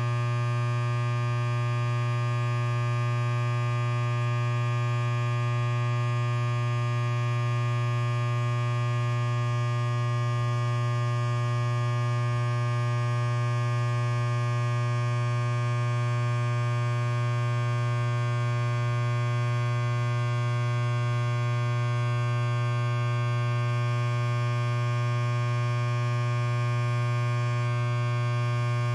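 Electric hair clipper running idle, its blade not cutting: a steady, even buzz that does not change.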